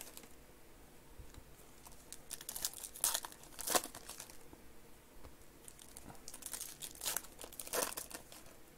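Foil trading-card pack wrapper crinkling as it is pulled open and the cards are slid out, in scattered crackles that are loudest about three to four seconds in and again around seven to eight seconds in.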